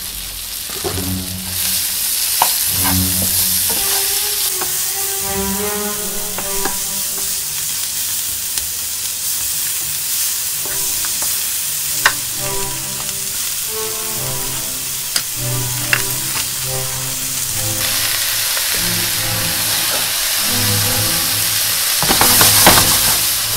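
Sliced mushrooms, onions and snow peas sizzling in a hot frying pan as they are stirred with a wooden spatula, with a few sharp knocks of the spatula against the pan. The sizzle swells louder near the end.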